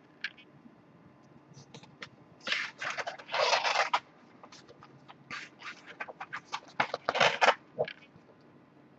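Cardboard LaserDisc jackets being handled, folded and slid against one another. Scattered light clicks and rubs, with two longer scrapes about three and seven seconds in; the first is the louder.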